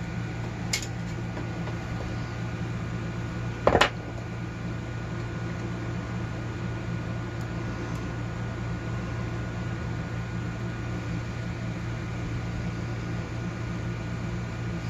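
Steady low mechanical hum, like a fan or air-conditioning unit running, with a faint tick just under a second in and one sharper click just before four seconds, typical of small metal parts or a tool being handled on a workbench.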